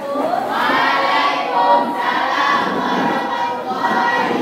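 A class of students' voices chanting together in unison, drawn out and rising in pitch at the start.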